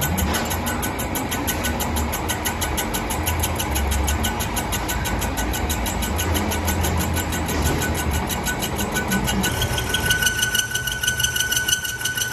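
Metal lathe running: a low hum with a fast, even ticking. About nine and a half seconds in, a steady high whine sets in.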